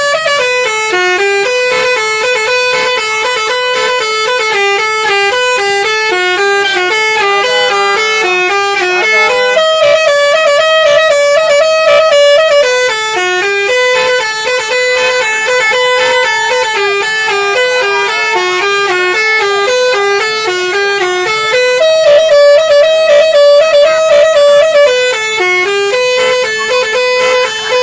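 Basuri bus's multi-tone telolet horn playing a long, loud melody in quick stepped notes, the same tune phrase coming round again.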